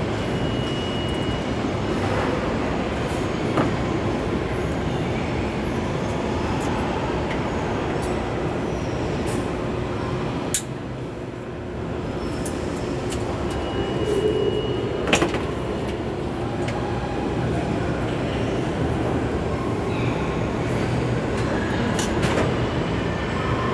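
A steady rumbling noise with a few sharp metallic knocks, of tools working under a vehicle, scattered through it; the loudest knock comes about fifteen seconds in.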